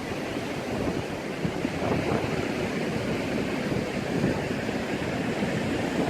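Wind rushing across the microphone over the steady wash of ocean surf.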